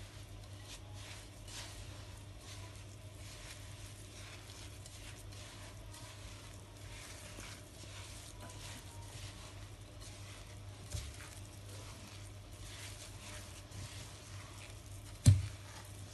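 Hands mixing a moist semolina basbousa batter in a glass bowl: faint, irregular squishing and rustling over a steady low hum. A single sharp knock sounds near the end.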